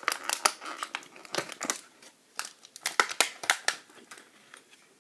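Plastic packaging tape crinkling and crackling as it is handled and picked at, in quick clusters of crackles that ease off after about four seconds.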